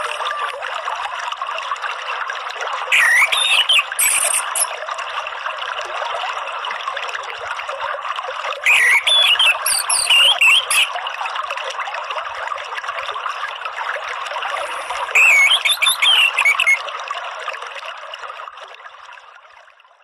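Orange-headed thrush (anis merah) song in three short bursts of rising and falling whistled phrases, over a steady trickle of running water. Both fade out near the end.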